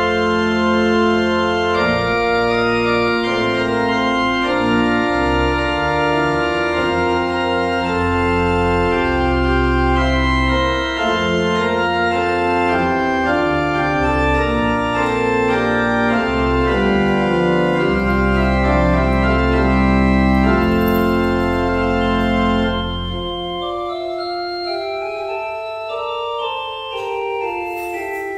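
Church organ playing the prelude that opens the service, in sustained chords over deep pedal bass notes. About 23 seconds in the pedal bass drops out and the music goes on more quietly in the upper voices.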